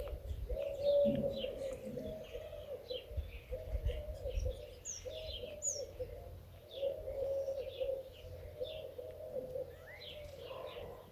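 Doves cooing in repeated phrases, with small birds chirping and twittering at a higher pitch.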